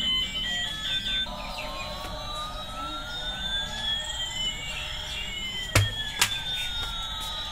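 Battery-powered toy airplane's electronic sound effect. A few beeping tune notes end about a second in, and a slow siren-like sweep follows, one tone gliding up while another glides down over several seconds. Two sharp knocks come about six seconds in.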